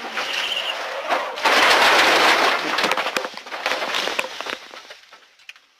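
A rally car crashing: a sudden loud burst of noise about a second and a half in, then a couple of seconds of crackling and clattering that fade away.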